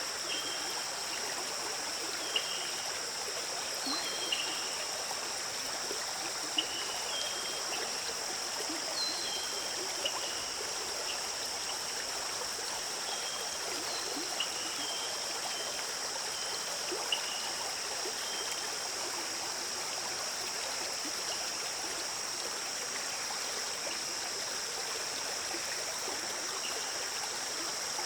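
A stream running steadily, with short high bird chirps scattered through the first half and a steady high hiss above the water.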